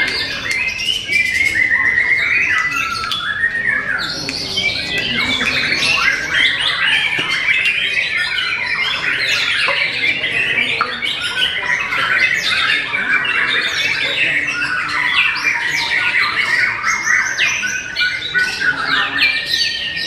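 White-rumped shamas (murai batu) in full contest song: a loud, dense, unbroken run of rapid chirps, trills and whistled sweeps, with several birds' phrases overlapping.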